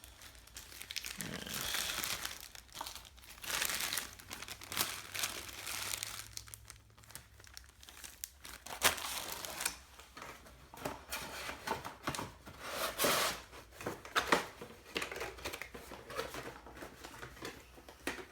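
Plastic parts bags crinkling and rustling in irregular bursts as they are handled, with a few sharp clicks and knocks.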